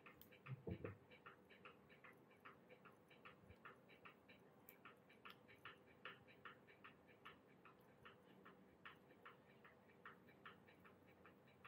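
Near silence: faint room tone with a steady low hum and faint, even ticking about three times a second.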